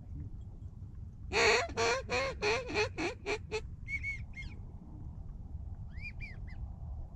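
A duck call blown in a quick run of about eight loud quacks, each shorter and faster than the last, in the manner of a hen mallard's greeting call. A few soft wigeon whistle notes follow, two about four seconds in and three more near the end.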